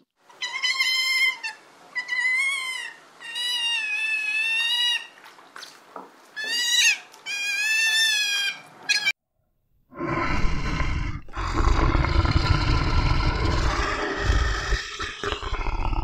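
Sea otter giving a string of about six high-pitched, wavering squeals, each around a second long. Then, from about ten seconds in, a brown bear growls, long, deep and rough.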